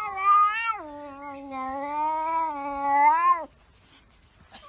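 A domestic cat yowling in one long, drawn-out call that wavers in pitch and breaks off about three and a half seconds in.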